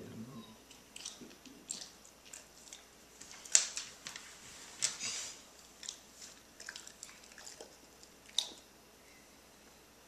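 Chocolate Labrador licking and chewing at its paws: irregular wet smacks and clicks of its mouth and tongue, with the sharpest smacks about three and a half, five and eight and a half seconds in.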